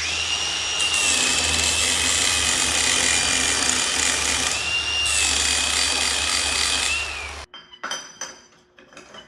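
Angle grinder grinding steel, a steady harsh grinding with a high motor whine that sags and recovers slightly under load. It cuts off suddenly about seven and a half seconds in, followed by a few light metal clinks.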